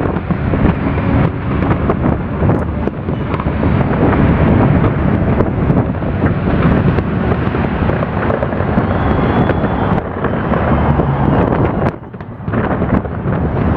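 Fireworks display: a dense, continuous barrage of bangs and crackling, smeared by wind rumbling on the microphone, easing briefly about twelve seconds in before picking up again.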